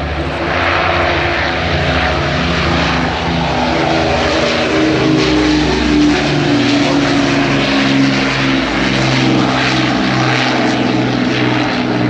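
Avro Lancaster's four Rolls-Royce Merlin V12 engines running as the bomber passes low overhead. The engine note drops in pitch as it goes over, about halfway through.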